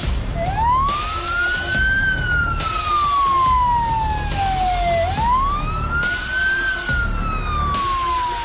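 A siren wailing in two slow cycles, each rising quickly and then falling away gradually, over music with a heavy pulsing low beat and regular hits.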